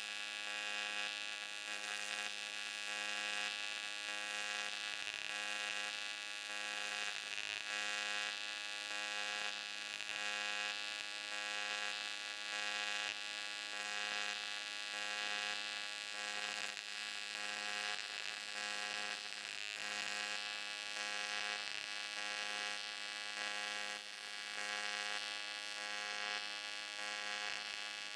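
Pulsed TIG welding arc on aluminium, buzzing steadily with a hiss over it throughout.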